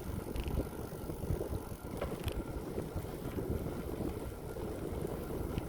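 Bicycle riding noise: wind buffeting the microphone over the hum of tyres rolling on the path, with a couple of light clicks.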